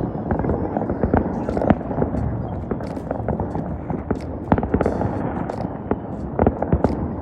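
Fireworks and firecrackers going off all around: a dense, irregular crackle of sharp pops and bangs over a steady rumble of more distant explosions.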